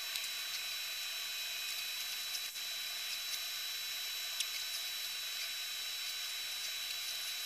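Soldering fume extractor fan running steadily: an even hiss with a faint steady high whine and a few light ticks.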